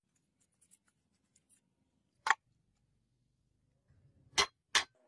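Three sharp clicks or knocks: one a little over two seconds in, then two about half a second apart near the end, over a faint low hum.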